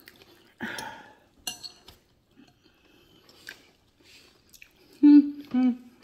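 A metal fork clicks against a bowl while a woman chews, and near the end she hums two short, loud closed-mouth "mm"s.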